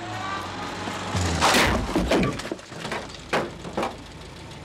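A car smashing through a wooden barrier arm: a loud crash and splintering about a second and a half in, followed by a few sharp knocks as pieces fall.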